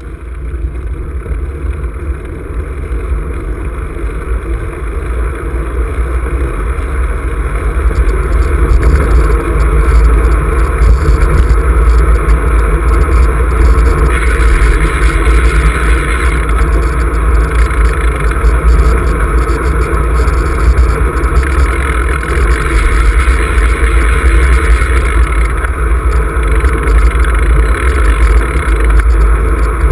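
Wind rumbling on an action camera's microphone during a road bike ride, a steady noise that grows louder over the first ten seconds or so and then holds.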